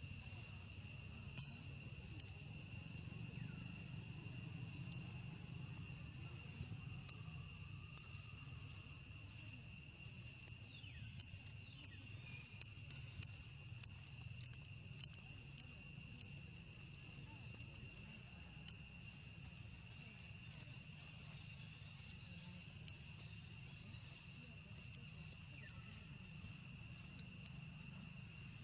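Steady chorus of insects in the forest: an unbroken high-pitched drone on several pitches, over a low rumble.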